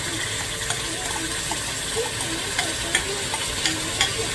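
Onions and a wet curry mixture of masala, curry powder and jeera sizzling in hot oil in a karahi, with a steady frying hiss and a few clicks of the spoon against the pot as it is stirred.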